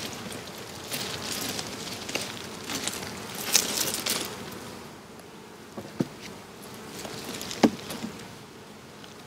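Honey bees buzzing around an open wooden hive while hive boxes are handled, with two sharp knocks in the second half as a box is set down on the stack.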